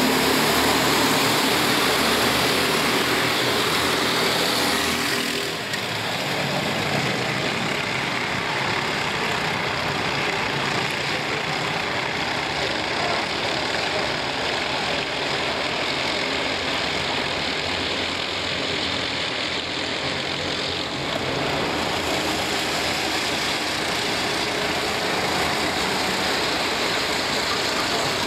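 Several racing kart engines running hard as a pack of karts races around the track, the engine note rising and falling as they pass. There is a brief dip in level about five and a half seconds in.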